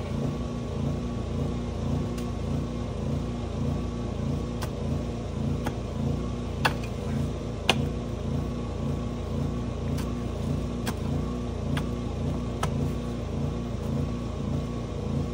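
An engine running steadily with a regular low throb, and a scattering of sharp clicks or knocks over it, the two loudest about seven and eight seconds in.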